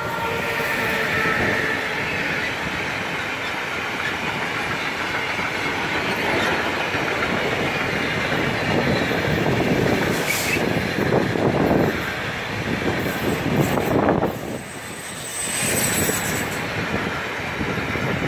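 Freight train of box wagons and container flats rolling past close by: a steady rumble and rattle of steel wheels on the rails. A faint electric whine from the electric locomotive fades in the first two seconds, and a thin high wheel squeal comes about three-quarters of the way through.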